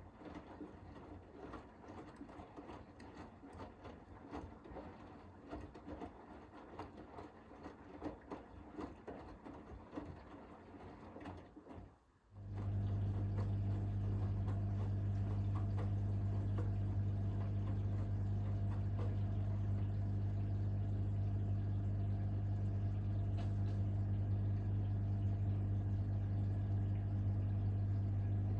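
Hoover H-WASH 500 washing machine mid-cycle: an uneven clicking and sloshing of the wash, then about twelve seconds in it goes quiet for a moment and a loud, steady hum starts and holds. The hum is typical of the drain pump pumping out the water.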